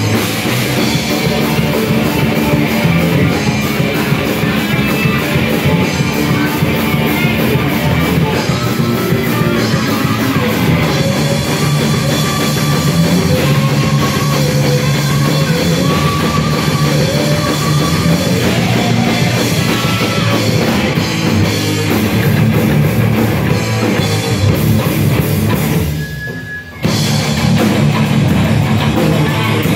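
Heavy metal band playing live, loud: distorted electric guitars, electric bass and a drum kit. Near the end the band drops out for under a second, then crashes back in.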